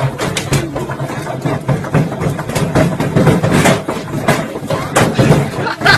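Washing machine running with a brick inside the drum: a steady mechanical hum under loud, irregular banging and rattling, several knocks a second.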